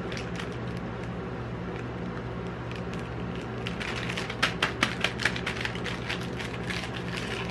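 Plastic biscuit wrapper crinkling and crackling as gloved hands handle the packet, with a run of about five sharp crackles a little past halfway. A steady low hum runs underneath.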